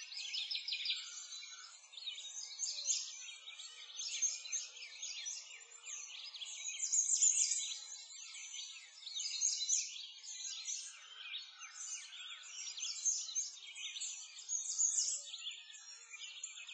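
A dense chorus of many small songbirds chirping and singing at once, swelling and fading a little in loudness.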